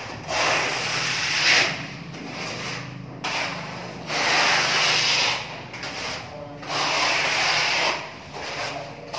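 A flat-bladed plastering tool scraped across a plastered wall in long strokes: three strokes of a second or more each, with quieter pauses between them.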